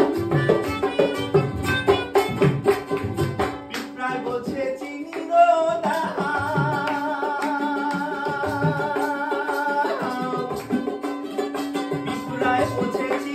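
Bhawaiya folk music played live on melodica and a two-headed barrel drum, with quick drum strokes over a held melodica tone for the first few seconds. Midway a voice sings long wavering notes over the sparser drumming.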